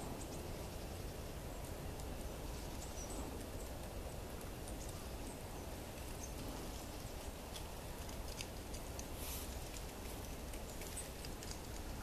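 Small songbirds calling in short, high chips now and then, over a steady low rumble.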